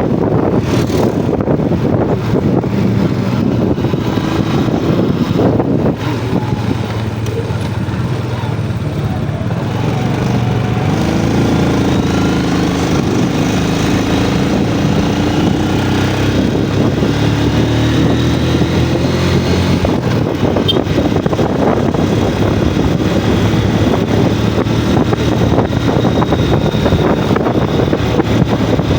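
Yamaha Jupiter MX motorcycle's single-cylinder four-stroke engine running under way, its note rising and falling as the throttle changes.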